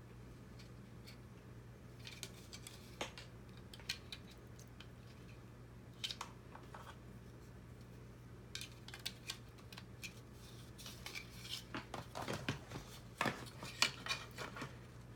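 Robot kit parts being handled and fitted together by hand: scattered small clicks and light clatter, sparse at first and busiest near the end, over a faint steady hum.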